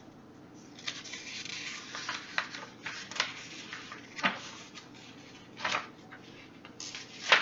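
Paper handling of a picture book as its pages are turned: a stretch of soft paper rustling, then several short, sharp paper flicks, the loudest near the end.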